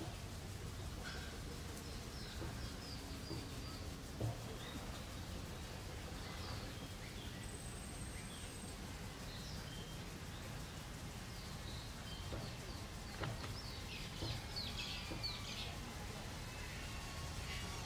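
Small birds chirping and calling, many short calls that get busier near the end, over a steady low rumble. A sharp knock about four seconds in is the loudest sound, with a fainter one later on.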